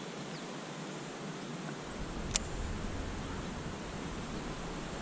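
Steady outdoor hiss of open-air ambience. A low wind rumble on the microphone sets in about two seconds in, and a single sharp click comes just after it.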